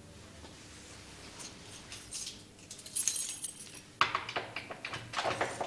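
Keys jingling faintly, then a door latch clicking and the door being opened about four seconds in.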